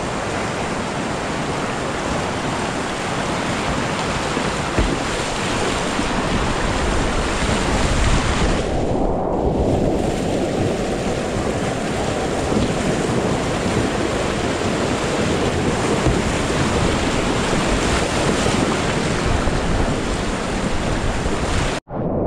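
Rushing whitewater of river rapids, a steady loud roar heard from on the water. The higher part of the sound is muffled for a moment about nine seconds in, and the sound cuts out for an instant near the end.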